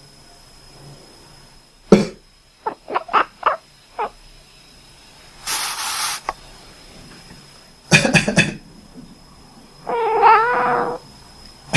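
A man coughs, and a domestic cat answers the coughs with its own voice. A quick run of short calls follows the first cough, and one drawn-out meow comes about a second after a second burst of coughing.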